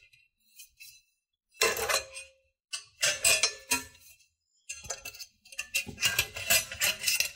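Sheet-metal cover plate being handled against a copier's metal frame: metallic clattering and clinking in three bursts, the longest near the end.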